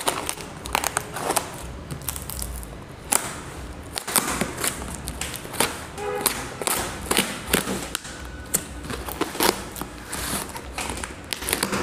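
A knife slicing and scraping through layers of packing tape on a cardboard box, making a run of irregular sharp scratches and clicks.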